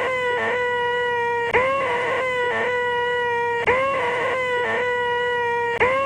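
A man making a loud, nasal, held 'eeeeeeh' noise with his voice at one steady pitch. It is done again and again in long cries of about two seconds each, each one starting with a brief upward scoop after a short break.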